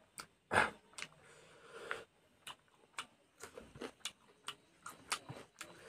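Close-up eating sounds: wet chewing and lip-smacking clicks, irregular at roughly two a second, with one louder burst of noise about half a second in, as food is eaten by hand.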